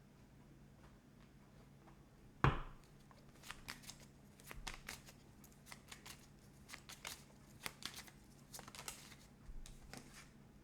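Tarot cards being handled and shuffled: a single thump about two seconds in, then a string of quick card snaps and rustles.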